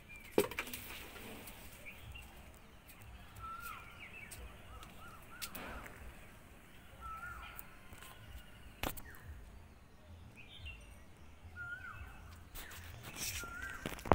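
A bird calling over and over outdoors, a short call that rises and then drops, every couple of seconds. A few sharp clicks come in between, and a loud knock comes near the end.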